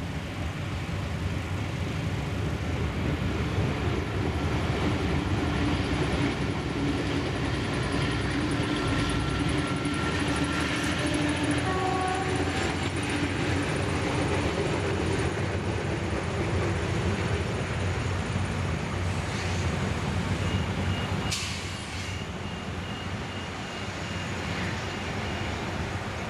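Adelaide 2000 class 'Jumbo' diesel railcar set running past, with a steady engine rumble and wheel noise on the track. The sound eases off after about 20 seconds as the train moves away.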